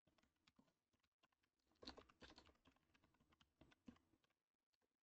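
Faint typing on a computer keyboard: irregular keystrokes, with denser runs about two seconds in and again near four seconds, then stopping shortly before the end.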